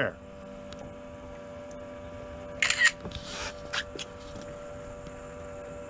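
Camera shutter sound about two and a half seconds in, the photo of the held-up fish being taken, with a few fainter clicks after it. Under it runs a steady hum of the boat's motor.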